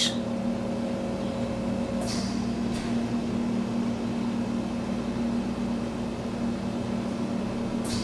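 Steady fan hum with a low, even drone; a higher tone in it drops out about two seconds in, and a few faint, brief hisses sound over it.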